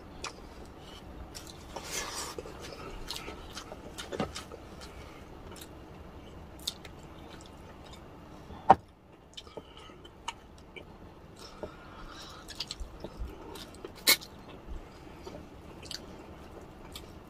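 Close-up eating sounds of braised pork humba and rice eaten by hand: chewing and wet mouth noises, broken by many short clicks, the sharpest one near the middle.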